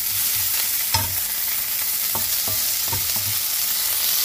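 Fiddleheads (ostrich fern) sizzling in a nonstick frying pan while a wooden spatula stirs them. A handful of light knocks of the spatula against the pan come from about a second in.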